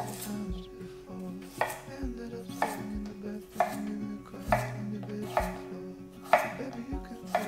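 Chef's knife slicing through a raw carrot and striking a wooden cutting board, one crisp cut about every second.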